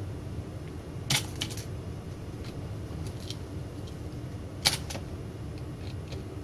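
Sharp clicks and light taps of a hand tool and cable connectors being worked on an opened LCD monitor's circuit boards: a cluster of clicks about a second in and one louder click about four and a half seconds in, over a steady low hum.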